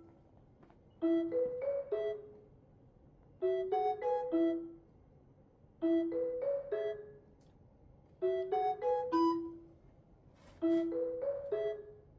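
Background music: a light tune of four short ringing notes played in quick succession, the phrase repeating about every two and a half seconds with short pauses between.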